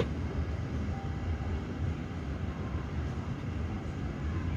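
Steady low rumble of a Boeing 787's jet engines as the airliner taxis slowly, muffled through the terminal window glass.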